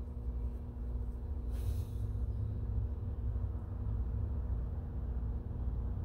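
Steady low rumble and hum in the background, with a brief cloth rustle about a second and a half in as a shop rag is rubbed between greasy fingers.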